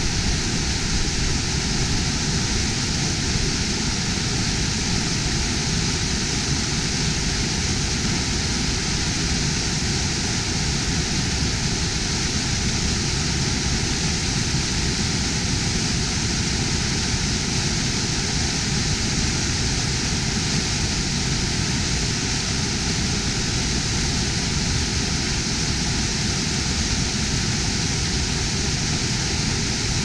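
Waterfall: water tumbling over rocks in a steady, unbroken rush.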